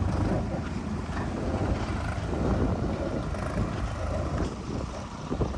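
Diesel engine of heavy earth-moving machinery running steadily, a low rumble with scattered short knocks.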